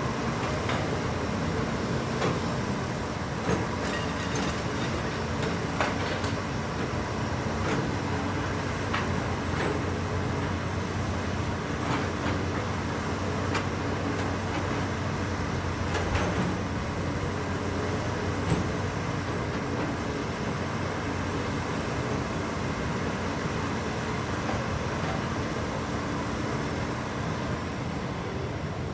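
Heavy diesel machinery running steadily with a low drone, with sharp metallic knocks now and then.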